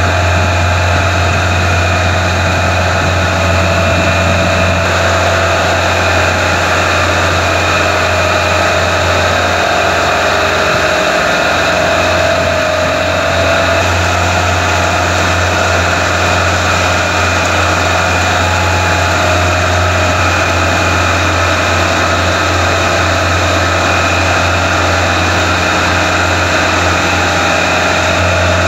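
Steady low machinery hum with a few fixed tones, over the rush and splash of wastewater spilling through V-notch weirs and churning in an aeration tank.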